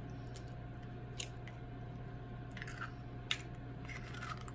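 Eggshell being pulled apart over a bowl and the emptied shell halves handled: a few faint clicks and brief crunchy crackles of shell.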